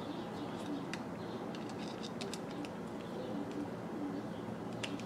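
Faint scattered light clicks and taps of a screwdriver and small plug parts being handled, over a steady low background hum.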